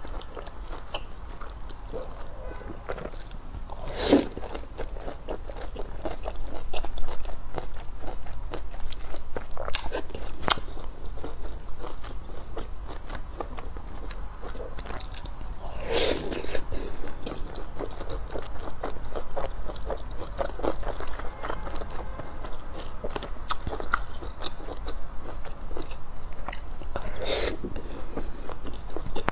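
Close-miked eating: wet chewing and biting on noodles, with many small mouth clicks and a few louder slurps spread through.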